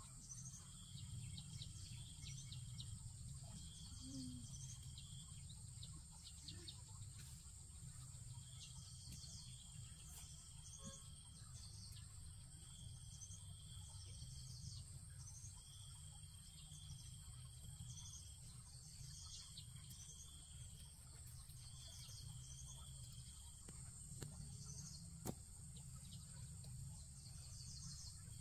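Faint insect and bird chorus: a steady high-pitched insect whine, a repeating trill lasting about a second with short gaps, and brief higher chirps, over a low rumble. A single sharp click near the end.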